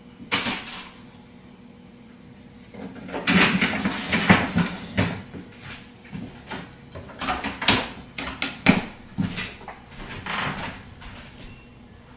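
Kitchen cupboard doors and drawers being opened and shut, with things clattering as they are handled. There is one knock just after the start, then a run of knocks and clatters from about three seconds in.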